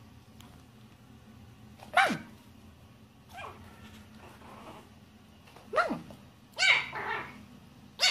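A small puppy yapping: short, high barks that each drop in pitch. One comes about two seconds in, then a fainter one, then several more close together near the end.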